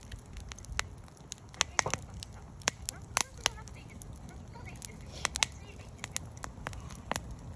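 Wood campfire crackling, with sharp pops at irregular intervals over a low steady rumble.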